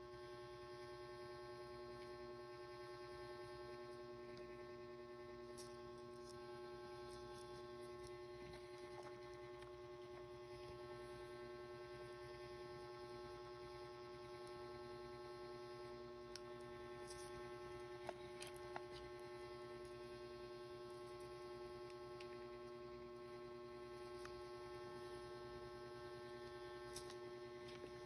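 Steady electrical hum made of several unchanging tones, with a few faint scattered clicks.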